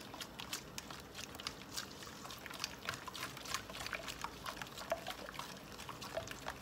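A hand squishing and stirring a runny egg, oil and yogurt mixture in a stainless steel bowl: a quick, irregular run of wet squelches and small splashes.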